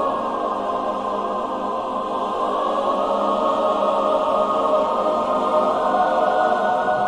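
Choir singing long held chords as background music, growing slightly louder in the second half.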